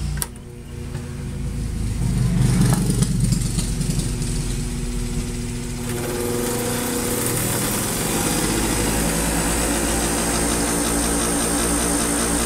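Bench grinder switched on with a click for its first run after 29 years boxed up; its electric motor spins up over several seconds, then runs steadily at full speed with a hum and a high whine.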